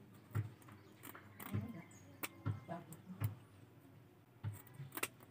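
Scattered soft clicks, snips and scrapes as small fish are cut open and cleaned by hand with scissors.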